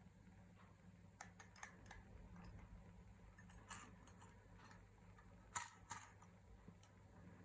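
Near silence over a steady low hum, broken by a few faint, sharp clicks and ticks, the two loudest about a third of a second apart roughly five and a half seconds in.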